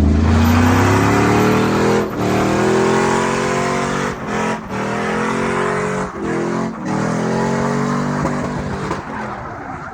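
Chevy Silverado pickup's engine revving hard under load, its pitch climbing and then falling back after short breaks about five times, with a steady rush of tire noise from drifting.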